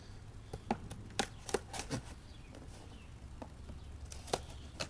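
A string of short, uneven clicks and light knocks from a small package of hard plastic parts being opened and handled, over a low steady hum.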